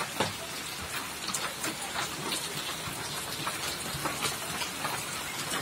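Hailstorm: hail and rain falling steadily, a dense patter with many sharp ticks of stones striking the ground and a parked motorcycle.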